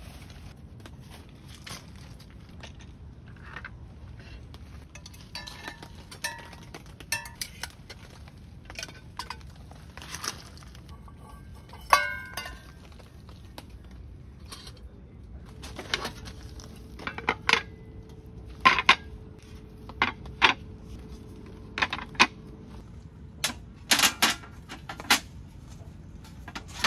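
Kitchenware being handled: scattered clinks and knocks, some with a brief ring, coming more often and louder in the second half, over a steady low background noise.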